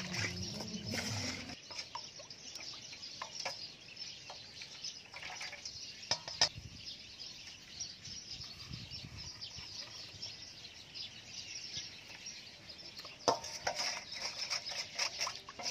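Metal spoon stirring thin batter in a stainless steel bowl, with a few sharp clinks of the spoon against the bowl, the loudest about six and thirteen seconds in. Birds chirp steadily in the background.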